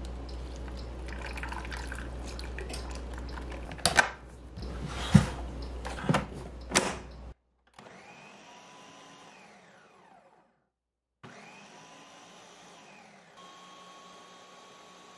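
Water pouring into a blender jar, then four loud knocks as the jar is handled on the base. Then a Shark Ninja Nutri Ninja blender's motor grinds the smoothie, its pitch rising and falling and stopping briefly, before settling into a steady whine near the end.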